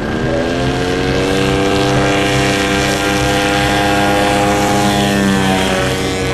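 Small fixed-wing UAV's propeller engine running at full throttle for takeoff. Its pitch climbs over the first second, then holds steady through the takeoff run and liftoff, dipping slightly about five seconds in.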